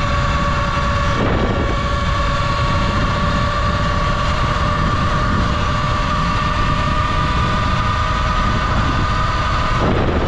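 Falcon Pro 79 electric dirt bike under way: a steady high motor whine over a heavy rumble of wind and road noise on the microphone. The whine breaks briefly about a second in and again near the end.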